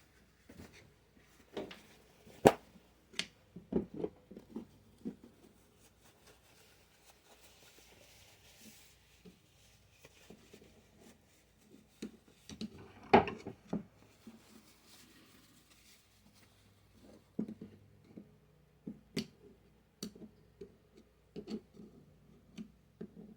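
Irregular clicks and knocks of tools and metal gearbox parts being handled while old, dirty grease is cleaned out of the transmission case, with a sharp knock about 2.5 s in and another about 13 s in.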